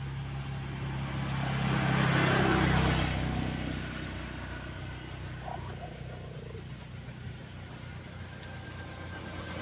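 An engine's steady low hum with a rushing noise that swells about two seconds in and then fades.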